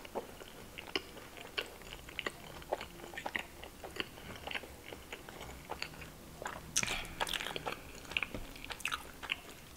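Close-miked chewing of a mouthful of naan with chicken saag: soft, wet mouth clicks at an irregular pace. A denser run of crisp crackles comes about seven seconds in.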